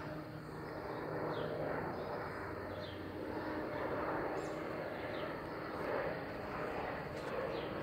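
Airplane engine droning steadily, with a few short bird chirps over it.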